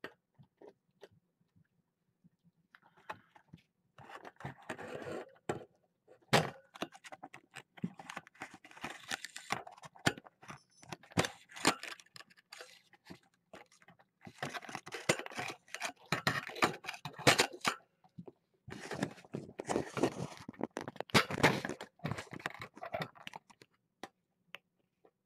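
Close handling noise on a webcam's microphone: irregular bursts of rustling, scraping and sharp clicks as the camera and its mount are moved and adjusted.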